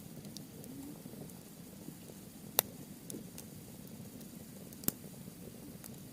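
Campfire of softwood and hardwood logs burning, with a low steady rush of flame and sharp crackling pops from the wood. The loudest pop comes about two and a half seconds in and another just before five seconds, with a few fainter ticks between.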